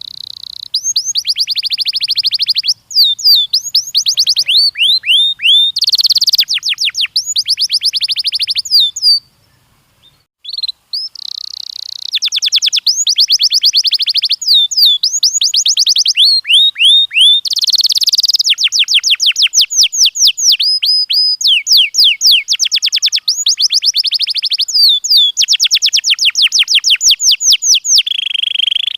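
Domestic canary singing: long trills of fast, repeated down-slurred notes run one into the next, with a short pause about a third of the way in.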